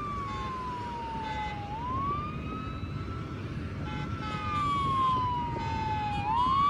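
Emergency vehicle siren wailing. Its pitch falls slowly for about two seconds, then sweeps quickly back up, and this happens twice. Underneath is a steady rumble of motorcycle engines and freeway traffic.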